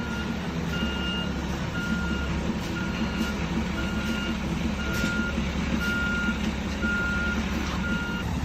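Concrete mixer truck's reverse alarm beeping steadily about once a second, over its engine running.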